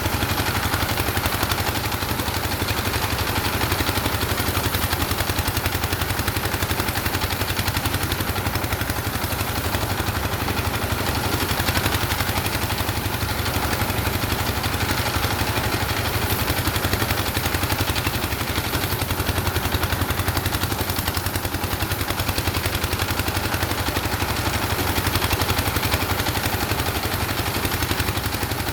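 An engine running steadily at a constant speed with a rapid, even knocking beat.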